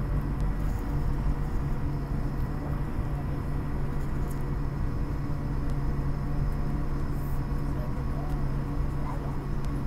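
Steady low hum in the cabin of an Airbus A220-300 taxiing after landing, from its Pratt & Whitney PW1500G geared turbofans at low thrust and the air system, with a few faint high steady tones over it.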